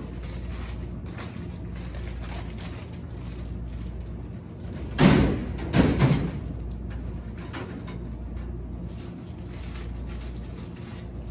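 A steady low machine hum, with two loud bangs about five and six seconds in.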